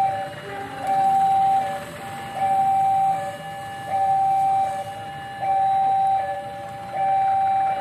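Railway level-crossing warning alarm sounding a repeating two-tone hi-lo signal, a louder high tone alternating with a softer lower one about every three quarters of a second, warning that a train is approaching.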